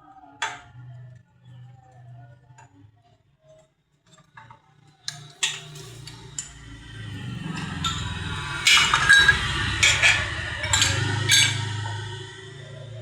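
Metal clinking and rattling: a few separate clinks, then from about halfway a louder, busier stretch of metal pieces knocking and scraping together.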